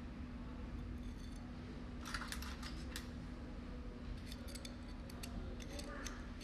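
Light metallic clicks and scrapes of a screwdriver tip and small steel type characters against a tail sealer's steel embossing bar as the characters are pushed into its slot. The clicks come in clusters about two seconds in and again from about four to six seconds in, over a steady low hum.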